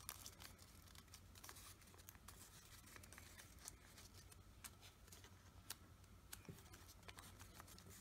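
Faint crinkling and small irregular crackles of origami paper being folded and creased by hand.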